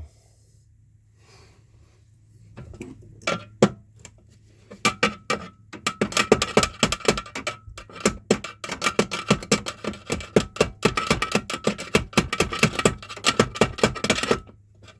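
Rapid metal-on-metal tapping, several sharp strikes a second, on a stuck steel conduit locknut ring on an electrical box, knocking it loose. It starts sparse a few seconds in, turns into a dense steady run, then stops just before the end.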